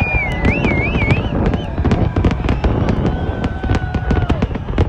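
Fireworks display: a dense, continuous run of bangs and crackling pops over a low rumble, with a warbling whistle in the first second.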